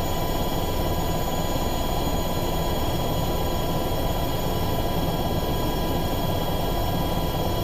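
Steady cabin noise of a UH-60 Black Hawk helicopter in flight, heard from inside with the door open, with several steady high whines over the engine and rotor noise.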